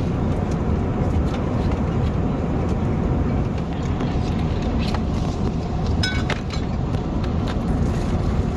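Steady cabin noise of an Airbus A380 in cruise: a deep, even rush of air and engine noise. A brief higher-pitched sound stands out about six seconds in.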